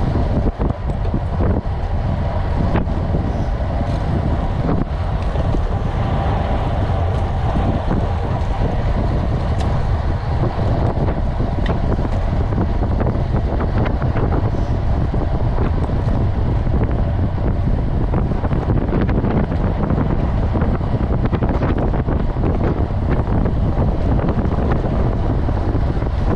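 Wind noise rushing over the microphone of a camera on a road bike riding at race speed, about 35 to 40 km/h, with tyre and road noise and scattered small ticks underneath.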